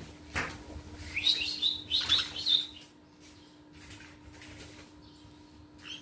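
Green-cheeked conures chirping: a quick call just after the start, then a run of short, high, repeated chirps for about two seconds, fading to quieter sounds near the end.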